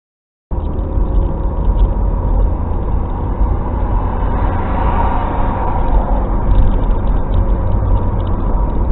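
Steady road and engine noise of a moving vehicle heard from inside the cabin, mostly a deep rumble, cutting in suddenly about half a second in.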